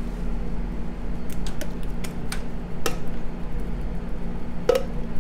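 Light taps and clicks of tin cans knocking against each other and the rim of a disposable aluminium foil pan as thick condensed soup is tipped out, the loudest a ringing metal tap near the end, over a steady low hum.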